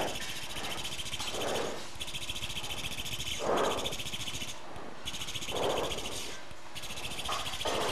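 Arthroscopic shaver with a high-speed blade running in a steady, high-pitched whine with a fast flutter, breaking off briefly three times. Three soft whooshes sound underneath.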